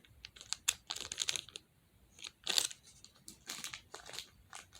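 Plastic fidget toy handled close up: irregular small clicks and brief crinkling rustles, most likely a stretchy monkey noodle tube being pulled and squeezed.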